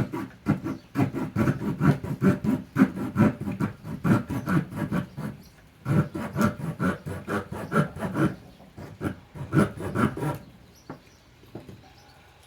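Small folding saw blade of a Victorinox RangerGrip pocket knife cutting through hardwood in quick back-and-forth strokes, about three a second. It pauses briefly near the middle, then resumes, and stops a little before the end.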